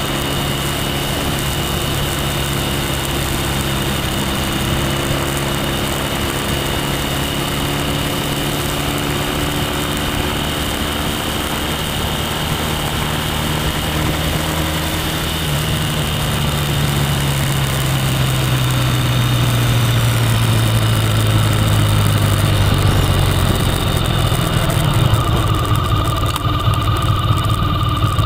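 Motorcycle engine running under way, with rushing wind noise over it. About halfway through, the engine note falls gradually over several seconds as the revs drop.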